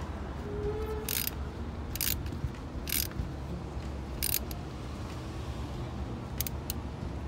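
Ratchet wrench clicking in short, irregular bursts as it tightens the nut on a car battery's positive terminal clamp.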